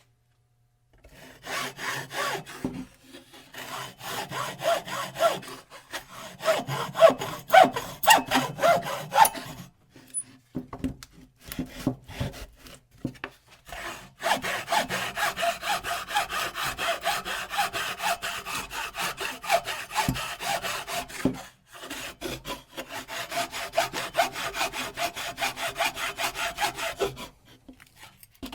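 Hand saw sawing in quick back-and-forth strokes, in several runs with short pauses between them, the longest pause about ten seconds in.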